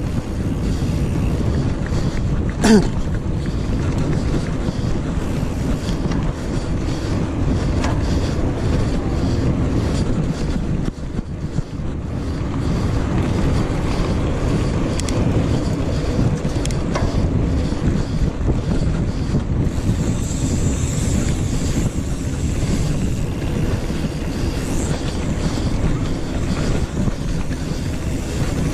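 Wind buffeting the microphone of a handlebar-mounted camera on a mountain bike ridden over a packed sandy dirt track, a steady low rushing noise. A short sharp sound stands out about three seconds in.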